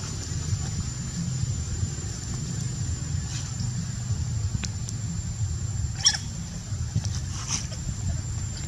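Outdoor ambience: a steady low rumble with a thin, constant high-pitched tone over it, broken by a few short chirps or squeaks, the loudest about six seconds in.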